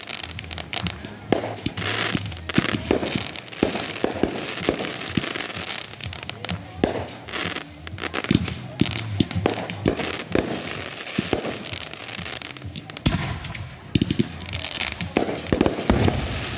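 Backyard aerial fireworks going off in quick, irregular succession: repeated sharp bangs of bursting shells with crackling between them.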